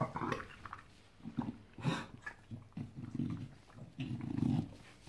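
English bulldog making short, irregular low grunting and snuffling noises close up as it nuzzles at a person's face.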